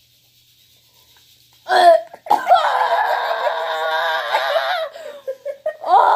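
Two young women laughing, starting about two seconds in: a short burst, then a long high-pitched peal of laughter of about two and a half seconds, and another outburst near the end.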